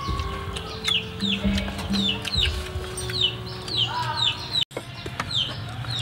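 Chickens calling in the background, a string of short falling peeps about two a second, over quiet background music, with a few sharp clicks.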